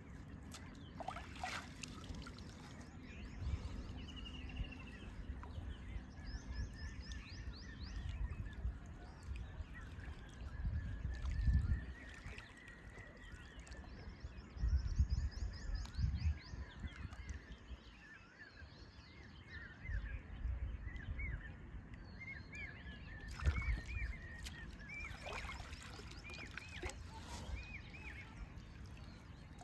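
Riverside outdoor ambience: birds calling off and on in short chirps, over low rumbling noise that swells and fades several times.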